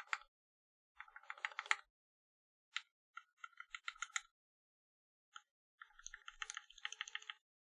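Typing on a Percent Canoe 60% mechanical keyboard with vintage black linear switches lubed with Krytox 205g0: rapid key presses in bursts of about a second, with short pauses between words.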